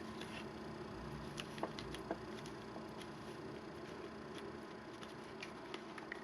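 Faint handling of paper: a few soft clicks and rustles, mostly in the first couple of seconds, over a low steady room hiss.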